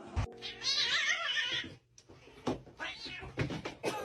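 A cat meowing in a high, wavering call lasting over a second, then a shorter call near the end, with a few sharp clicks or knocks in between.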